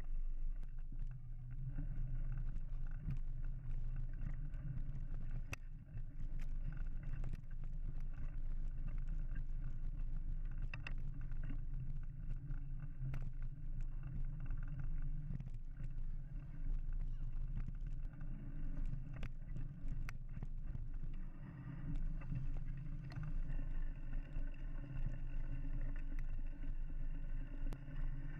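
Mountain bike ridden along a dirt trail: a steady low rumble from riding and wind, with scattered sharp clicks and rattles from bumps.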